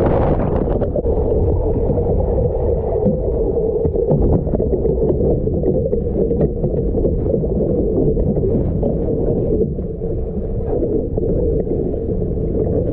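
Muffled, steady rush of water and wind around a sailing catamaran, with scattered small knocks.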